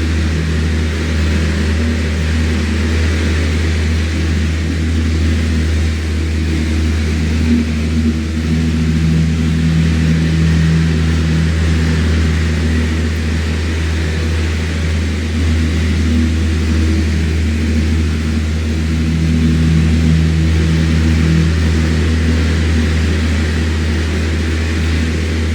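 Electric fan running steadily: a constant low motor hum under an even rush of air, with a slight slow swell and fade in the hum.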